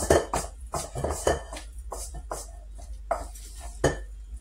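A spoon scraping and knocking against the side of a stainless steel mixing bowl as flour is folded into thick cake batter. The strokes come quickly, two or three a second, then thin out to a couple of strikes near the end.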